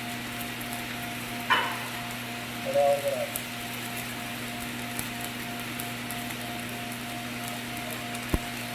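Steady frying-like crackle of a stick-welding arc over a steady hum. There is a sharp sound about a second and a half in, a short tonal sound around three seconds, and a click near the end.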